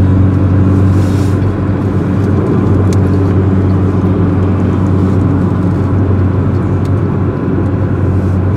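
Car running at a steady cruise, heard from inside the cabin: a constant low engine drone over an even rush of tyre and road noise.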